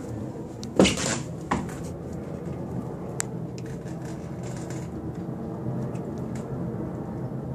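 Handling noise from a handheld camera being turned inside a small boat cabin: a loud bump with a rustle about a second in, a smaller bump just after, and a single sharp click near the middle, over a steady low hum.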